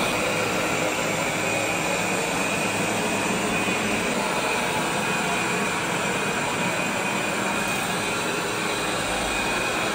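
Robot vacuum-mop running as it cleans the floor: the steady whirring hiss of its suction fan, with a faint high whine over it.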